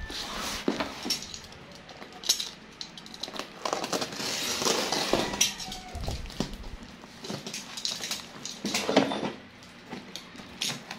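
Cardboard box wrapped in clear packing tape being handled and shifted on a table: irregular knocks, scrapes and crinkling, with a longer rustling stretch about four seconds in.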